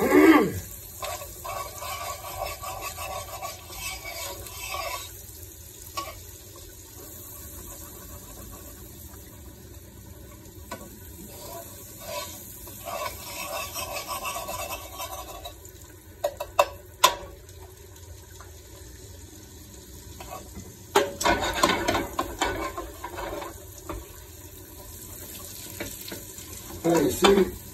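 Butter sizzling as it melts and browns in a hot pan for a sauce. A few sharp clicks come past the middle, and a short spell of louder clattering follows a few seconds later.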